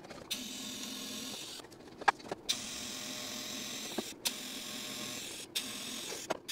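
Electric welding arc tack-welding a stainless steel V-band flange onto exhaust tubing: four short welds in a row, each a steady hiss with a hum lasting one to two seconds, with brief breaks and a few clicks between them.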